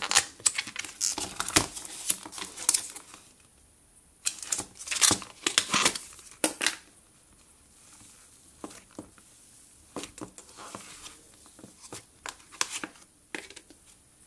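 Hands pressing, poking and squeezing slime in a plastic tub: clusters of small crackling, popping clicks, busiest in the first seven seconds and sparser after.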